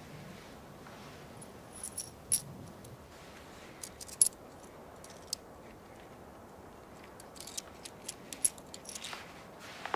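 A handful of small gold coins clinking against one another in a palm. The metallic chinks come singly or in twos and threes, with a quicker flurry of clinks in the last few seconds.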